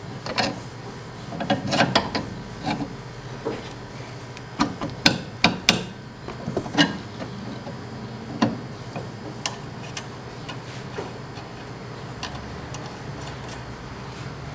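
Irregular metal clicks and knocks as a new sway bar link is fitted by hand into the front suspension of a Chrysler Intrepid, with a steady low hum underneath.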